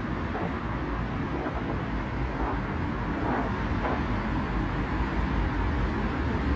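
Steady low rumble of vehicle road noise, with no distinct events.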